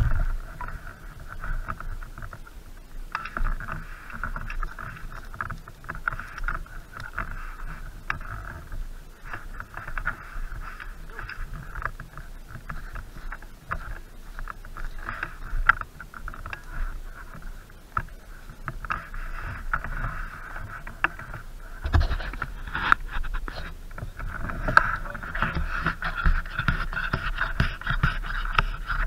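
Footsteps on a dry forest floor of leaves and twigs, with frequent knocks and rustle from handling the rifle-mounted camera, over a steady hiss.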